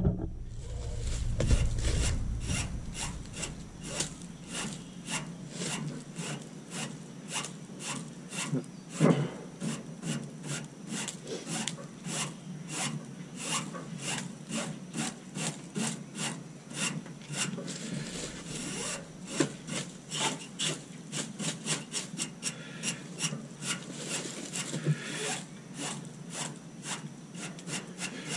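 A stiff-bristled hand brush scrubbing matted lint and dirt off an air conditioner condenser coil's fins in short, quick strokes, about three a second, with one louder knock about nine seconds in. The coil is clogged with a thick coat of lint.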